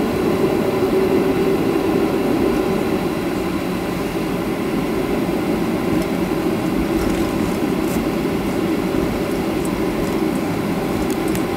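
Steady cabin noise inside a Boeing 737-300 taxiing after landing: its CFM56-3 engines running at idle together with the rumble of the airliner rolling over the taxiway.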